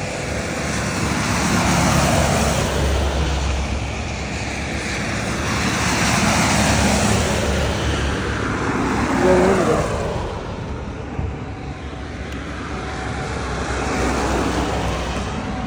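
Buses driving past one after another, their engine and tyre noise swelling and fading as each goes by. A short wavering tone comes about nine seconds in, the loudest moment.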